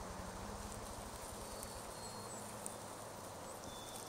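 Quiet outdoor ambience: a steady low hiss with a few faint, short high-pitched chirps.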